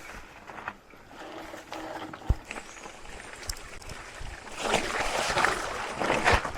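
Mountain bike rolling over a dirt trail: a rushing noise of tyres and riding, with sharp knocks twice, growing louder for the last couple of seconds.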